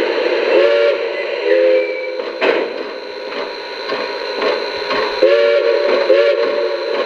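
Onboard sound system of a Lionel O-gauge Strasburg #89 2-6-0 steam locomotive sounding its chime steam whistle: two short toots, then two more about four seconds later, over a steady hiss, with a sharp click about two and a half seconds in.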